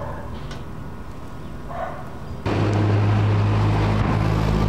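Armoured military vehicle driving by on a dirt road, its engine a loud steady drone with tyre noise. It cuts in suddenly about halfway through, after a quiet street background with a couple of faint brief sounds.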